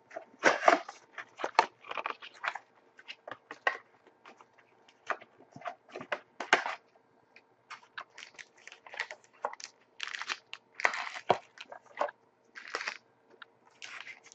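Crinkling, tearing and rustling of packaging as a sealed box of trading cards is unwrapped and opened: a string of short, irregular crackles.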